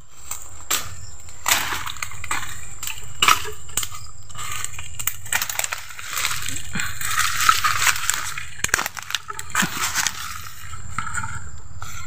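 Dry twigs and leaf litter crackling and snapping as a person pushes through undergrowth, with sharp snaps throughout and a denser stretch of rustling midway.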